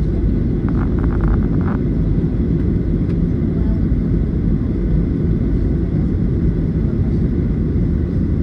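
Steady low rumble of jet engine and airflow noise inside a Boeing 737 airliner's cabin, heard at a window seat beside the engine while flying through cloud on approach. A short run of faint ticks sounds about a second in.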